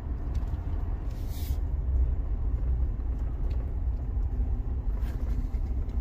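Low, steady rumble of a vehicle driving slowly up a gravel drive, heard from inside the cab, with a couple of faint clicks.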